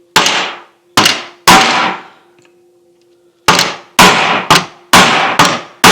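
Nine sharp hammer blows on a Carter dual action fuel pump's lever pivot pin, in a burst of three, a pause, then six about half a second apart, each leaving a metallic ring. The blows are trying to drive out a pin that will not move, which the owner thinks the lever has worn a groove into.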